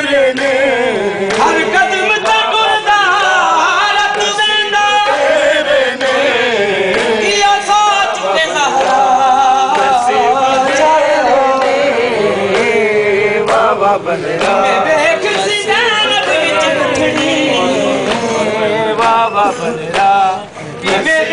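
Men chanting a noha, a Muharram mourning lament, together in a group without instruments: a male crowd singing in unison.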